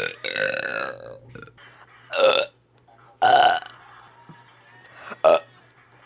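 A person burping repeatedly. A drawn-out burp fills most of the first second, then three shorter, loud burps come about two, three and five seconds in.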